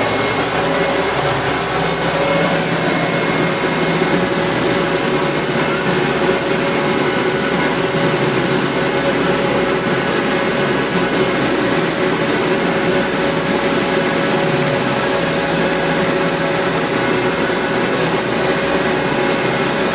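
Tractor engine running steadily under field work, a constant drone with a faint steady whine over it.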